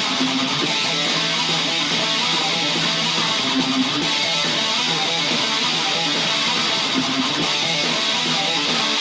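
Electric guitar playing a heavy metal riff, steady and unbroken.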